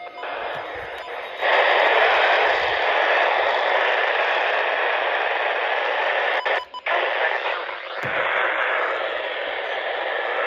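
Radio static: a steady hiss from a receiver with no voice on the channel. It jumps louder about one and a half seconds in and drops out briefly near seven seconds.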